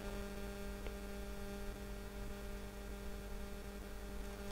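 Steady electrical mains hum on the recording, with a couple of faint computer keyboard clicks, about a second in and near the end.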